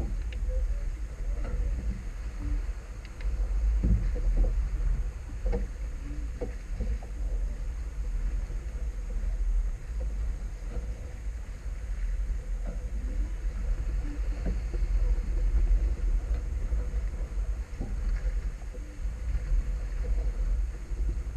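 Wind buffeting the microphone of a small sailboat under sail in a fresh breeze, a steady low rumble over the rush of water along the hull, with a few light knocks about four to seven seconds in.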